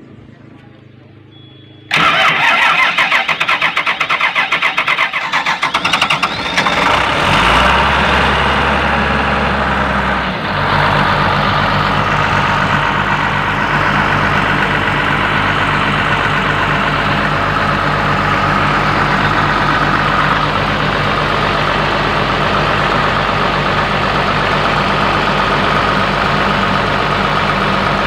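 Hydraulic excavator's diesel engine being started: the starter cranks it from about two seconds in for roughly four seconds, the engine catches, and it settles into a steady idle.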